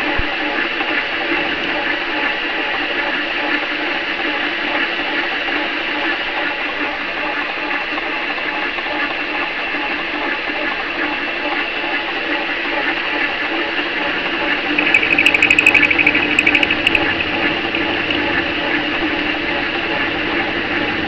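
Metal lathe running steadily with its motor and gear whine as the chuck spins. About fifteen seconds in it grows louder for a couple of seconds with a fast rattling buzz and a few sharp clicks.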